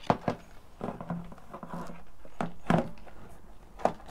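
A few sharp knocks and clicks, two close together near the start, two more past the middle and one near the end, as a quick-release tank bag and its base are handled and positioned on a motorcycle's fuel tank.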